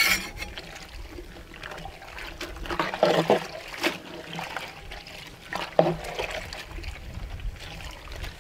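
A metal ladle stirring thin fruit custard in a large metal pot: liquid sloshing and swirling, with a few sharp knocks, about three seconds in and again near six seconds.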